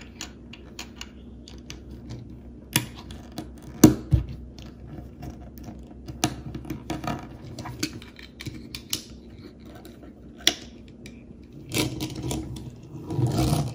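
Small plastic Lego pieces clicking and tapping as they are pressed together and handled on a wooden table, with a few sharper clicks and a denser patch of handling noise near the end.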